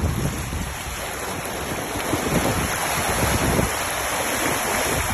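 Rough sea rushing and breaking alongside a sailboat's hull, with wind buffeting the microphone in gusts.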